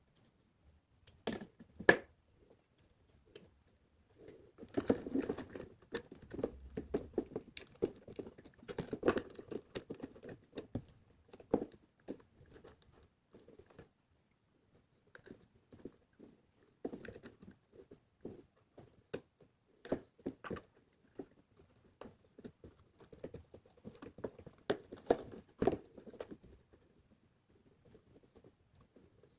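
Hands handling small electronics parts (an Arduino board, wires and enclosure pieces): irregular clicks, taps and light scraping in bursts with short pauses. A sharp click about two seconds in is the loudest.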